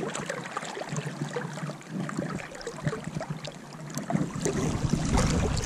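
Creek water rippling and lapping close by, with many small scattered splashes.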